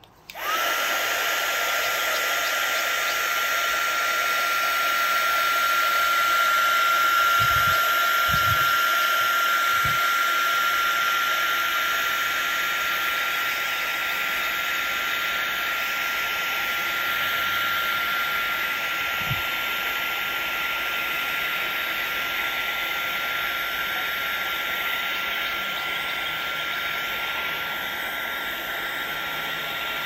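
Wagner HT400 heat gun switching on and running steadily, a rushing fan hiss with a steady high whine. It is blowing over freshly poured clear epoxy resin to smooth it and pop the bubbles.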